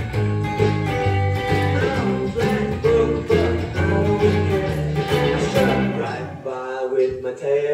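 Electric guitar, a Telecaster through a Blackstar amp with digital delay, played along to a rockabilly backing track with a steady bass line. Singing comes in near the end.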